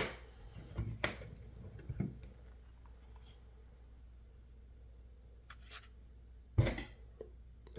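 Quiet room tone with a few faint clicks and taps from small lock parts being handled, and one louder handling thump about six and a half seconds in.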